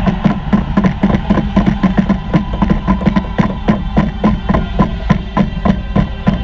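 Loud percussive music after a goal at an ice hockey arena, a fast, steady beat of about five strokes a second.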